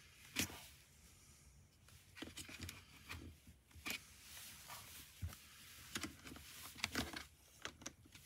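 Scattered light clicks, taps and scrapes of hard plastic being handled, irregular and spaced about a second apart: a motorcycle intercom's mounting clip being tried against the shell of a modular helmet.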